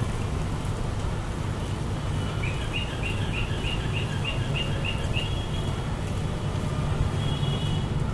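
A bird calling a quick run of about ten short rising chirps, some three a second, lasting about three seconds mid-way, over a steady low rumble of background noise.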